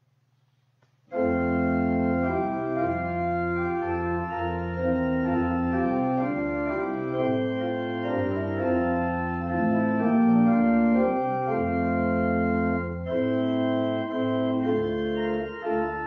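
Organ playing slow, sustained chords, coming in about a second in after near silence.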